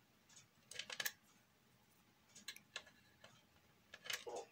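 Faint, scattered clicks and taps of small hard parts being handled as a blue spacer is tightened on the shaft of a Peco N gauge turntable, with a cluster about a second in and another near the end.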